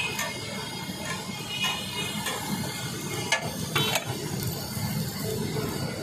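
Sandwich buns frying in oil on a large flat iron griddle: a steady sizzle, with a few sharp clicks of the spatula against the metal.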